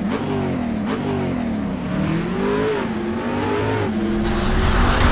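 Car engine revving in a series of short blips, its pitch rising and falling again and again, swelling louder near the end.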